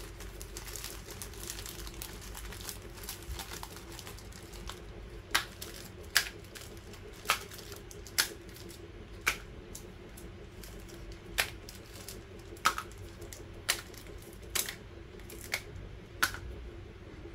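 Plastic-wrapped Milkybar chocolate bars crinkling as they are handled, then set down one at a time on a hard glossy tabletop: from about five seconds in, a string of about ten sharp taps, roughly one a second. A faint steady hum runs underneath.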